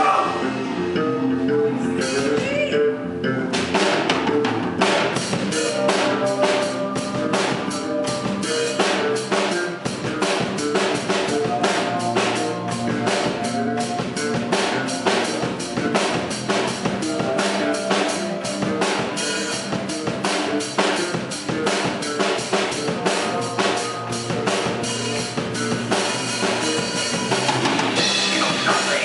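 Live rock band playing an instrumental passage: electric guitars over a drum kit, the drums coming in with a fast, steady beat about three to four seconds in.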